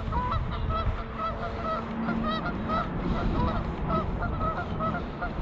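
A flock of seagulls calling over and over, many short squawks overlapping, over a steady low rumble.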